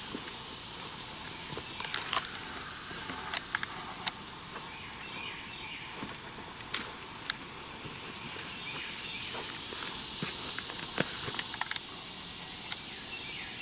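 A steady, high-pitched drone of insects, with scattered clicks and crunches of footsteps on dirt and leaf litter. The sharpest click comes about three-quarters of the way through.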